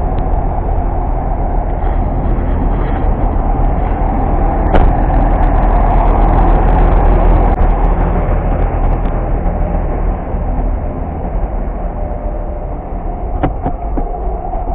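A bus engine running at idle, a steady low rumble. There is a sharp click about five seconds in and a few knocks near the end.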